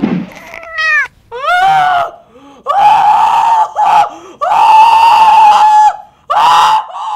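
A person screaming in alarm: a few short rising-and-falling cries, then several long, strained screams held on one pitch, the longest about a second and a half.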